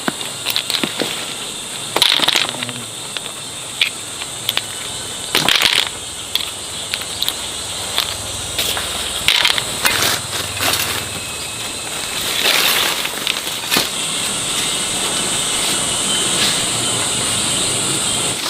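Irregular rustling and crunching with scattered sharp clicks, over a steady high hiss.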